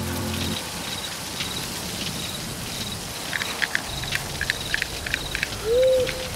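Night ambience: a steady hiss with short, repeated insect chirps and a quick run of sharp clicks in the middle. Near the end an owl hoots twice, and these hoots are the loudest sounds.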